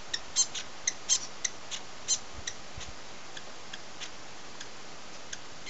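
New Zealand fantail giving short, sharp, high chip calls: a quick run of about ten in the first two and a half seconds, then a few fainter ones spaced out.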